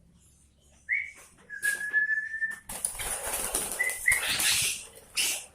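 A short whistled note, then a long steady whistle held for about a second, followed by a couple of seconds of rustling, flapping noise with two brief whistled notes in it.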